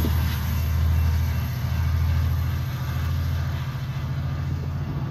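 Metrolink commuter train's diesel locomotive and coaches rumbling low and steady as the train pulls away, slowly fading, heard from inside a car.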